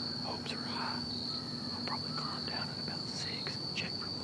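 Insects trilling in one steady, unbroken high-pitched drone, with a few faint short chirps and rustles over it.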